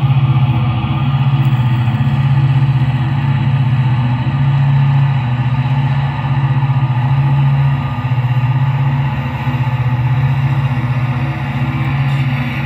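Steady, unchanging diesel-engine drone from a sound-equipped HO-scale model EMD diesel locomotive, with music alongside.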